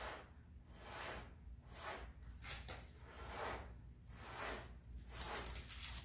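A person blowing through pursed lips onto wet acrylic pour paint to push it across the canvas. It comes as a series of soft, breathy puffs, about one a second.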